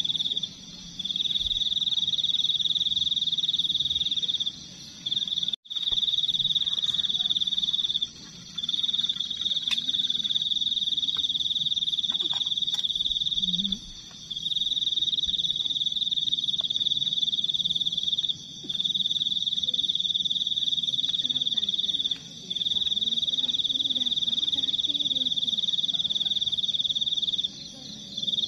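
A night-calling animal's continuous high-pitched trill, running in long stretches of four or five seconds broken by short pauses.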